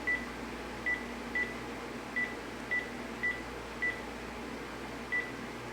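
Cordless phone key-press beeps as its buttons are pressed to move through the settings menu: eight short, identical high beeps at irregular intervals.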